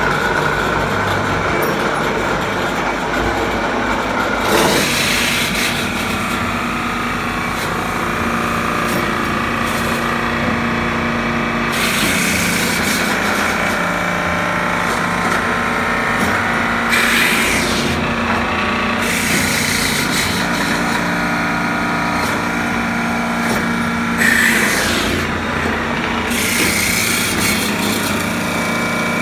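Hempel VK10 woodworking machine running in automatic mode: its motor runs steadily, and the cutter goes through wood workpieces several times, with louder hissing passes starting about 5, 12, 17 and 24 seconds in.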